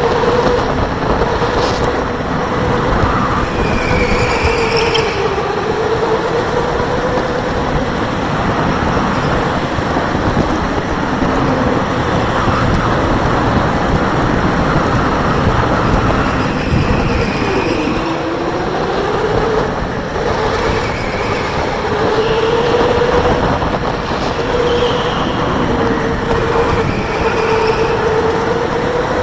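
Electric go-kart motor under way, its whine wavering in pitch with speed and dropping sharply once, about two-thirds of the way through, as the kart slows and then picks up again. A loud steady rushing noise runs underneath.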